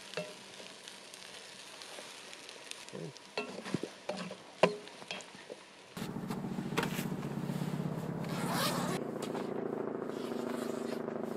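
Stir-fry sizzling faintly in a cast-iron skillet, with scattered clicks and scrapes of a utensil against the pan and plate as it is served. About six seconds in this gives way to a steadier, louder low hum with an occasional clatter.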